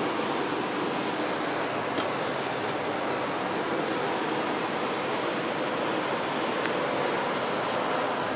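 Ventilated lab hood's blower fan running, a steady rush of air with a faint hum, and a single light click about two seconds in.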